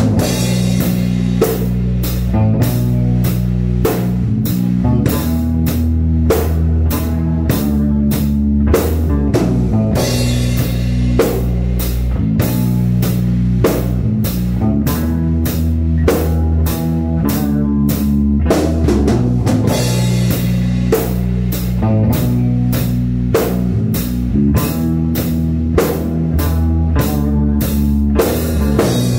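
Live rock band playing loud, with electric guitar over a heavy low end and a drum kit keeping a steady beat.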